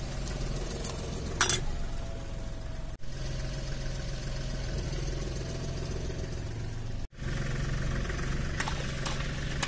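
Car engine idling steadily as its tyre creeps over small objects on asphalt, broken by two brief gaps. About one and a half seconds in, a sharp crack as a plastic-handled garden trowel is crushed under the tyre; a few sharp clicks follow near the end.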